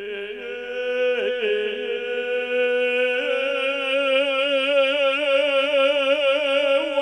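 A voice holding one long chanted note with a strong waver. It steps up a little in pitch about three seconds in.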